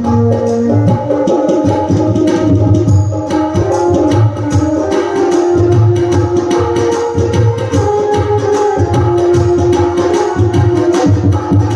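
Live Indian devotional music: a dholak hand drum playing a steady rhythm under a melody of held notes.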